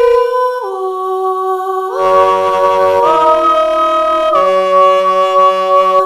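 Realivox Blue sampled female voice in Kontakt singing sustained notes. A single line glides between pitches in legato, then several notes are held together as a chord from about two seconds in, changing twice. It stops near the end with a short reverb tail.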